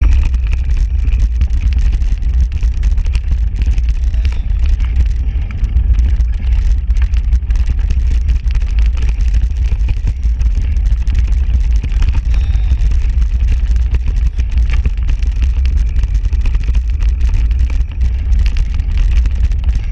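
Wind rumbling on the microphone of a mountain bike rolling fast down an off-road track, with tyre noise and many small clicks and rattles from the rough ground.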